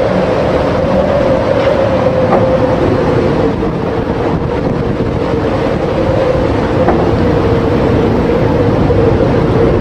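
Strong storm wind buffeting the microphone, with a steady howling tone running through it, over the rush of heavy breaking seas.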